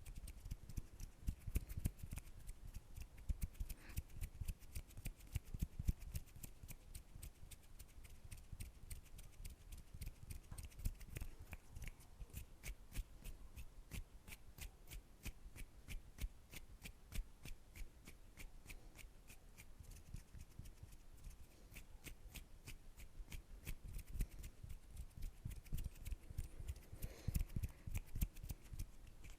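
ASMR hand sounds close to the microphone: hands rubbing, brushing and tapping, making a dense run of quick, crackly clicks and rustles with soft low thumps.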